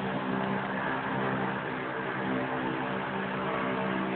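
A motor or engine running steadily, a constant low droning hum that does not change pitch.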